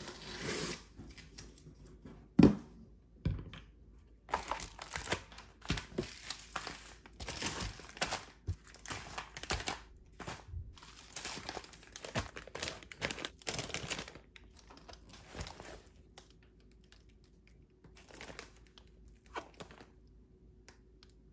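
Crinkly packaging being handled and rustled, with a single thump about two and a half seconds in. The crackling is densest in the middle and thins out over the last several seconds.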